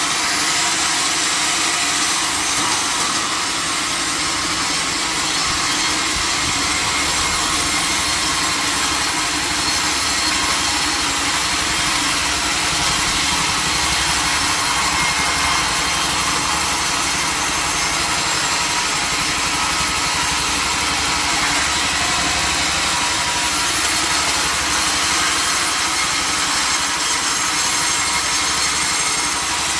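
Sawmill saw machinery running steadily and cutting timber, a loud continuous mechanical noise with no breaks.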